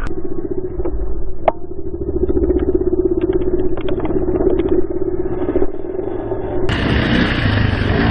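Dirt bike engine held at steady high revs, heard from on the bike, with a single sharp click about a second and a half in. Near the end a cut brings in a different dirt bike engine that sounds brighter and fuller.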